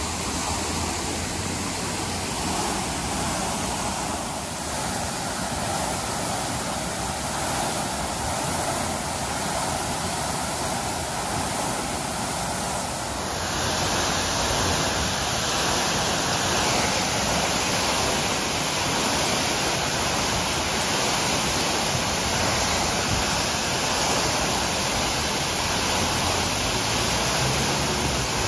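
Water gushing from a broken-off fire hydrant, a steady rushing hiss of spray coming down like heavy rain, which gets louder about halfway through.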